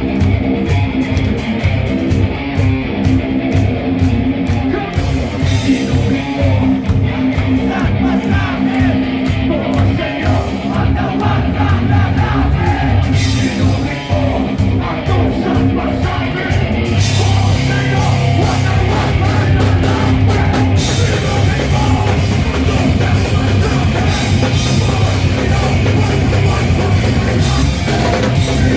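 A live rock band playing: electric guitar and drum kit, with some singing, becoming fuller and louder a little past halfway.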